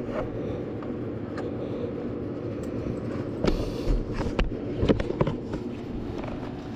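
A handful of sharp metal strikes in the second half, a hammer pounding the slag off a fresh 7018 stick weld, over the steady hum of an engine running.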